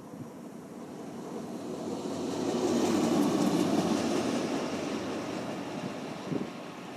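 A train passing on the track, growing louder to a peak about three seconds in and then fading away, with faint wheel clicks over the rail noise at its loudest.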